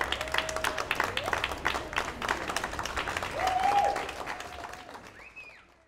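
A group of people clapping and cheering, with voices calling out in long held cries over the applause. It fades out near the end.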